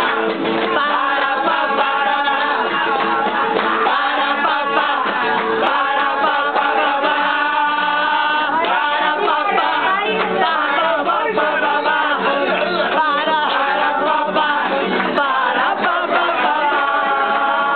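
A Spanish tuna, a student minstrel troupe, singing a song in chorus, with people around joining in; many voices together without a pause.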